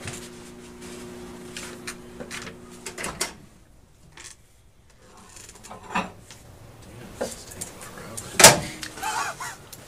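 Microwave oven running with a steady hum while heating soft plastic, cutting off about three seconds in as its door is opened. After that come scattered handling knocks and clicks, with one loud knock near the end.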